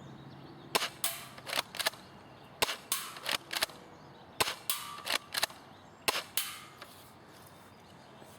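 UTG M183A2 spring-powered airsoft shotgun being fired repeatedly at a target. The shots come as about a dozen sharp cracks in irregular pairs and clusters over the first six seconds, then stop.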